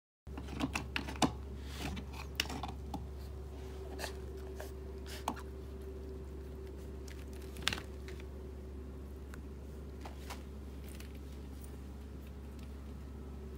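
Scattered light clicks and taps from a cat at a plastic pet water fountain, most of them in the first few seconds, over a steady low hum.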